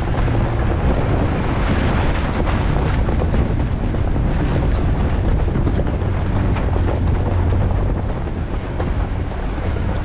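Wind buffeting a camera mounted low on a Jeep driving a rocky dirt trail, a steady heavy rumble, with the tyres rolling over gravel and small stones ticking; it eases a little near the end.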